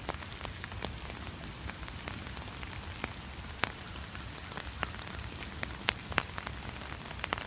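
Steady rain, with irregular sharp taps of drops striking a small umbrella overhead, a few of them louder than the rest.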